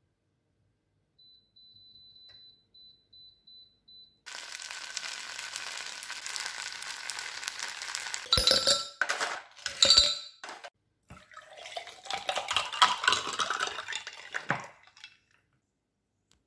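A run of faint short electronic beeps, then a steady sizzling hiss from the hot earthenware pot of fish-roe rice on the induction cooktop. Several sharp ringing clinks of dishes follow about halfway through, then water splashing and spilling over a cloth and countertop.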